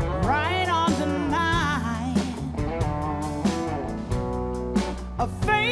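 A woman singing with a wide vibrato, backed by a live band of electric guitars and drums. The voice drops out for a band passage about two seconds in and comes back in near the end.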